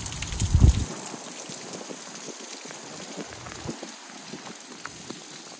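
Steady hurricane rain with scattered drops ticking close by. A brief loud low thump comes about half a second in.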